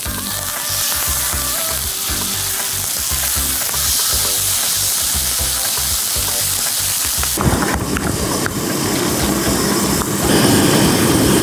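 Food sizzling and frying in a hot pan, a steady hiss. About seven seconds in the sizzle turns fuller and rougher, and it grows louder near the end.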